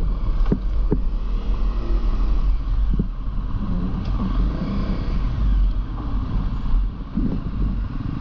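A vehicle running, with a heavy, steady low rumble of wind on the microphone and a few short knocks.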